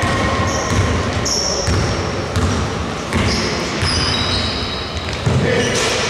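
Basketball dribbled on a hardwood gym floor, a steady bounce about every two-thirds of a second, ringing in a large hall. Short high sneaker squeaks come in between.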